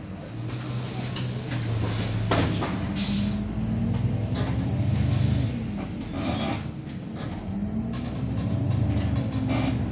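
Irisbus Citelis 12 m city bus engine heard from inside the cabin while the bus is under way. The note rises as it pulls away, drops back about six seconds in, then rises again. A few knocks and rattles come from the bus body.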